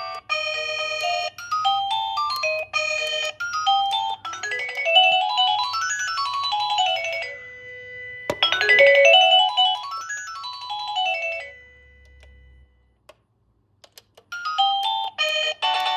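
Electronic plug-in doorbell chime playing its tunes: a string of clean beeping notes in a melody, then two quick runs of notes sweeping up and down. It falls silent for about two seconds near the end before the next tune starts.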